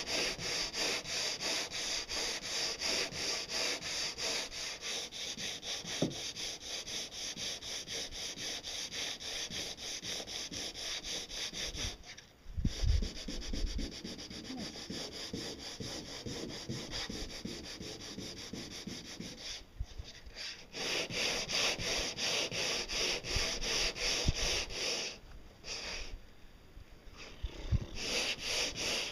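Hand sanding of a resin-coated boat pontoon with worn sandpaper, down to 80 grit: quick, even back-and-forth rasping strokes with a few short pauses. The paper is scrubbing off the sticky surface layer of the resin.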